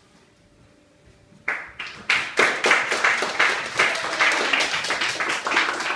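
Small audience applauding, the clapping breaking out suddenly about a second and a half in after a hush and staying loud and dense.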